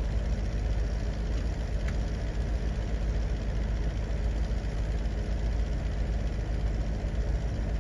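Steady, unchanging low engine rumble with an even hum.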